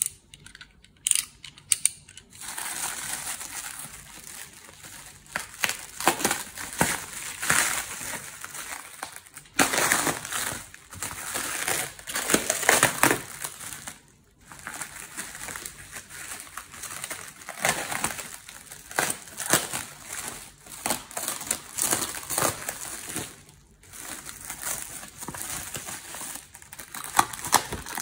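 A few sharp clicks, then plastic stretch wrap crinkling in irregular bursts as it is cut with a utility knife and pulled off a cardboard box.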